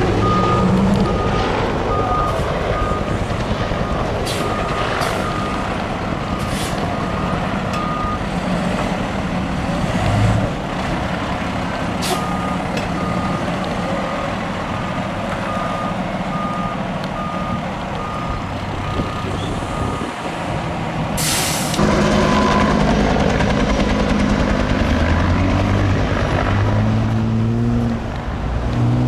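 Fire engine's diesel engine running while its backup alarm beeps in evenly spaced short beeps, in two spells. Later comes a short hiss from the air brakes, then the engine note rises as the truck pulls away.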